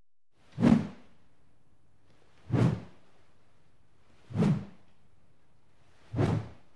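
Four short whoosh sound effects, evenly spaced about two seconds apart, each a quick swish with a heavy low end, accompanying text and a logo animating onto the screen.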